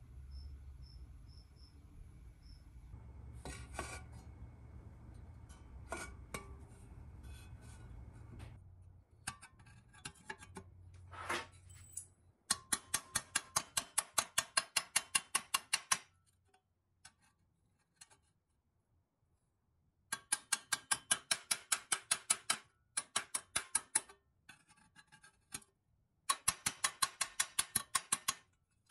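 Small hammer tapping on the pressed steel of a Tonka toy truck part held in a bench vise, in four runs of quick, even metallic taps about six a second, starting about halfway through. Before the tapping there is a low hum with a few scattered clicks.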